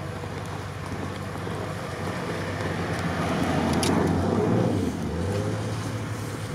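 Off-road SUV driving slowly along a snowy track, its engine growing louder as it passes close by about four seconds in, with a rush of tyre noise on snow. The engine note drops just after it passes.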